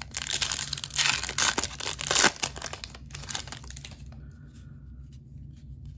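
Foil wrapper of a Panini Donruss trading-card pack being torn open and crinkled by hand, loudest about one to two seconds in. The crackling dies down to faint rustling after about three seconds as the cards come out.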